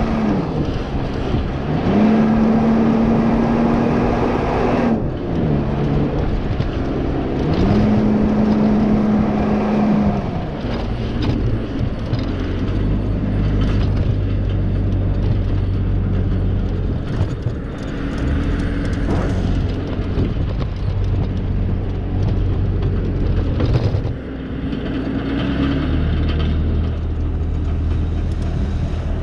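A vehicle engine working hard. Its pitch holds high for a few seconds at a time and then drops as the throttle eases, with lower, slower running later, over a steady rush of noise.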